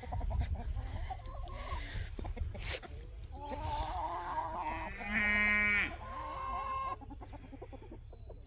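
Chickens clucking as they peck at thrown scratch grain. A goat bleats once, loudly, about five seconds in.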